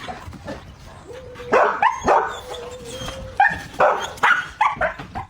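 A dog barking in a quick run of about a dozen short barks, starting about a second and a half in.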